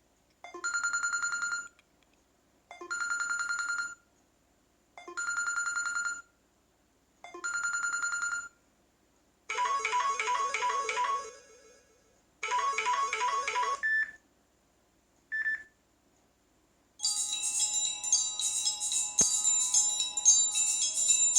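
Samsung Galaxy Tab Active ringtones played one after another. First comes a short chiming tone repeated four times, about every two seconds. Then two passages of a busier melody and two brief blips, and near the end a denser, higher melody begins.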